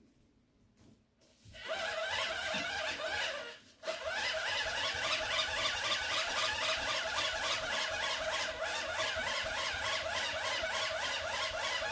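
Hand-crank dynamo of an emergency radio being wound: a geared whirring that pulses evenly with the turning of the crank. It starts about a second and a half in, stops briefly near the four-second mark, then runs on steadily.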